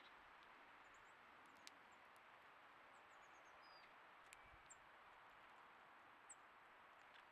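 Near silence: a steady faint hiss with scattered short, high bird chips, including a quick falling run of chips about three seconds in, and a few faint ticks.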